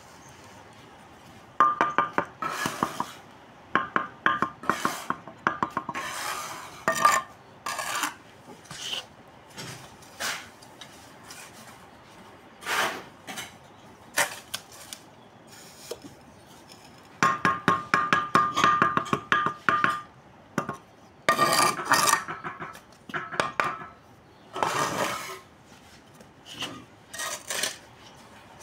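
A steel bricklaying trowel scraping and scooping mortar and working it on hollow clay bricks, with taps and clinks as bricks are set. The sound comes in several bursts of quick scrapes and knocks, some with a thin metallic ring, separated by quieter pauses.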